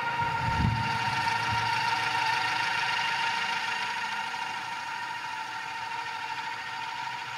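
Coaxial twin rotors of the Earth Copter, a flying twin of the Ingenuity Mars helicopter, humming steadily in flight as it descends to land. There is a brief low rumble about a second in, and the hum eases slightly toward the end.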